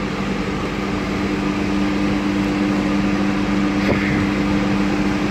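Steady hum of ventilation fans: two unchanging low tones over an even rushing noise, with a faint tap about four seconds in.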